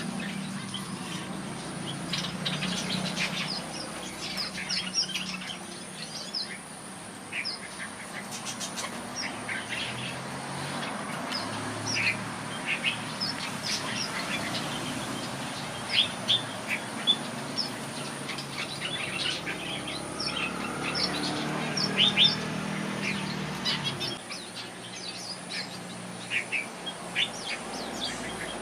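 Red-whiskered bulbuls chirping and calling: many short, quick notes scattered throughout, the loudest about halfway through and again a few seconds later, over a low steady hum.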